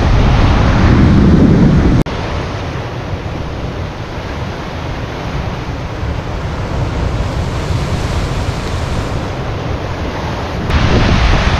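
Atlantic surf breaking and washing over rocks, mixed with wind buffeting the microphone. The sound drops abruptly about two seconds in, at a cut, and comes back louder near the end.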